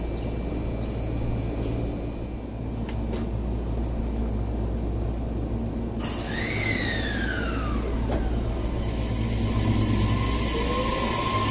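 Tobu 60000 series electric train rolling slowly past with a steady low rumble. About halfway through, its motor whine sets in as two tones gliding down together over a couple of seconds, then settles into a steady whine, with a tone rising near the end.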